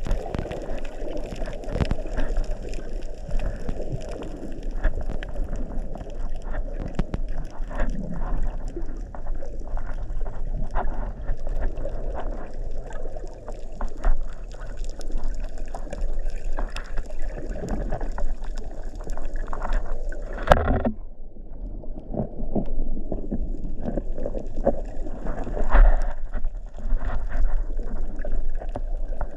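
Underwater sound picked up by an action camera on a pole: a muffled, steady rush of water with scattered small clicks and knocks. One sharper knock comes about twenty seconds in.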